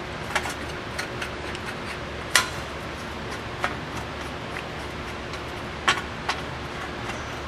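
Scattered metallic clicks and taps from hand tools and hub bolts as the new wheel hub's 15mm bolts are started by hand, about seven in all, the loudest about two and a half seconds in. A steady low hum runs underneath.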